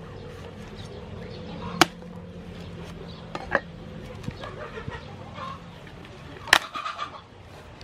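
Cleaver and hands working a bunch of sugar palm fruits, cutting and snapping them off the stalk: a few sharp knocks, the loudest about two seconds in and another about six and a half seconds in.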